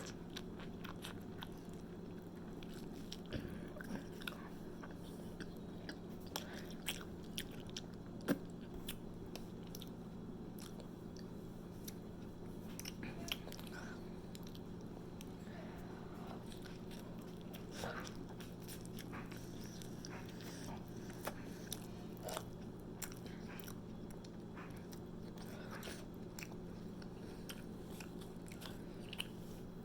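Close-up chewing and biting of a cheesy hoagie, with scattered wet mouth clicks and small crunches, over a steady low hum.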